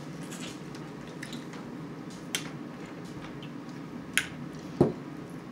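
Quiet handling sounds at a meal table: a plastic water bottle being handled gives a few sharp clicks, and a single louder thump comes near the end, over a steady low hum.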